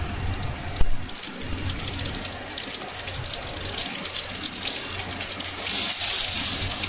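Hot oil sizzling and crackling in an aluminium kadhai as mustard seeds splutter among frying garlic, with one sharp knock about a second in. Near the end chopped onions are tipped in and the sizzle swells to a louder hiss.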